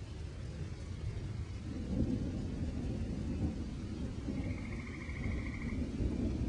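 A steady low rumble, with a faint high buzzing tone for about a second and a half past the middle.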